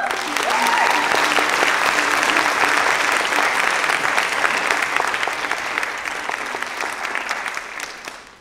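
Audience applauding in a hall, a dense patter of clapping that fades away near the end.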